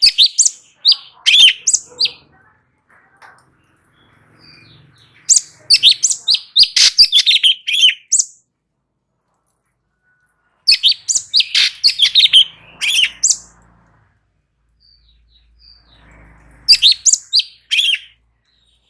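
Cucak cungkok, a small leafbird, singing in four bursts of rapid sharp chirps and whistled notes, each a second or two long, separated by pauses of a few seconds.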